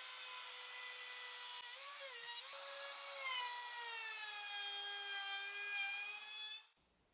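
Router fitted with a roundover bit running at high speed with a steady high whine. About three seconds in its pitch drops and it gets louder as the bit cuts along the pine strip. It stops abruptly near the end.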